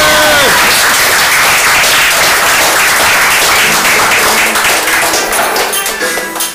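Audience applauding with hand claps after a dance, dying away in the last second or so.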